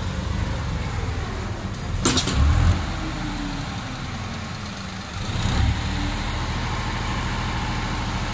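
Tractor's diesel engine running as it manoeuvres a trolley loaded with sand, revving up briefly twice. A sharp knock comes about two seconds in.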